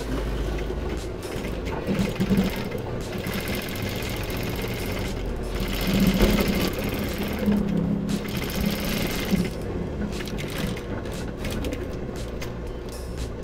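Gemsy industrial sewing machine stitching a pocket down onto heavy denim, running in spurts that pick up and ease off a few times.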